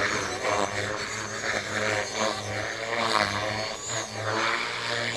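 Align T-Rex 470LT electric RC helicopter in flight, a steady hum of its motor and rotor blades.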